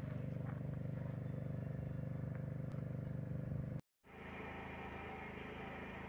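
Diesel engine of heavy construction machinery running steadily with a low, even hum. A sudden break comes just before four seconds in, followed by a quieter steady engine hum.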